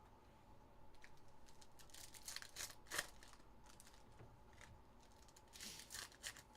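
Faint crinkling and tearing of trading-card pack wrappers as packs are ripped open, with a few sharper snaps, the clearest about three seconds in.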